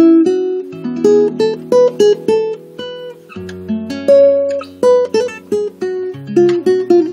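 Solo acoustic guitar playing an Italian Renaissance lute tune, a plucked melody over ringing bass notes.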